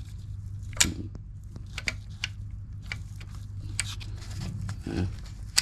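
Scattered metal clicks and clinks, about five spread over a few seconds, from a Coleman 200cc GY6 ATV transmission's gear selector and parts being handled, over a steady low hum.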